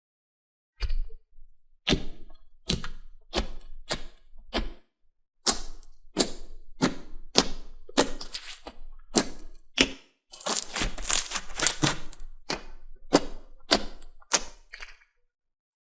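Slime being pressed and poked by hand, giving a string of sharp crunching clicks, about one to two a second, with a denser run of crackles about two-thirds of the way through.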